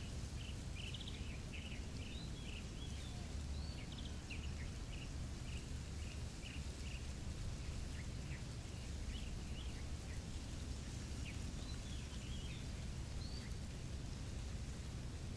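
Small birds calling in short, high chirps and whistles, busiest in the first few seconds and then in scattered bursts, over a steady low rumble.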